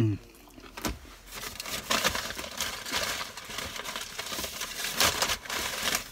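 Close-up chewing of a crispy breaded chicken sandwich: crunching, crackly mouth sounds from about two seconds in, easing off near the end. A short vocal sound comes at the very start.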